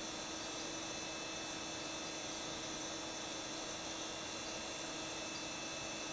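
Steady hiss with a faint, even hum underneath and no distinct event: background and recording noise only.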